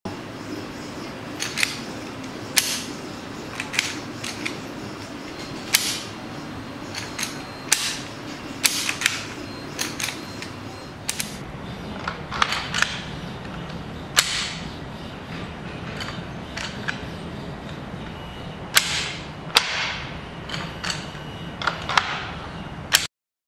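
Airsoft gas-blowback Glock slides being pulled back by hand and let run forward, giving sharp metallic clacks over and over at uneven intervals, about one to two a second, over a low steady background noise. It is a hand check of how smoothly the slide rides over the hammer, one pistol fitted with a roller-bearing hammer and one with the factory hammer. The sound cuts off suddenly near the end.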